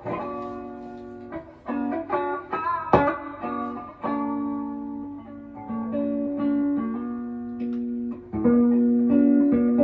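Electric guitar played through a Fender Princeton amplifier, picked single notes and chords ringing out. About three seconds in comes one sharp pop, the loudest moment, the kind of odd pop the amp's wiring is being tested for.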